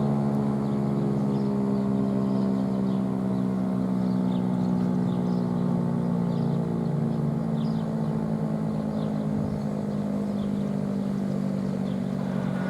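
Federal Signal STH-10 dual-tone outdoor warning siren sounding a steady alert tone, its two-note chord held with a slow, slight drop in pitch.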